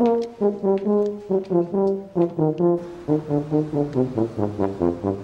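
Comedic soundtrack music: a bouncy low-brass melody of short, separate notes in quick succession.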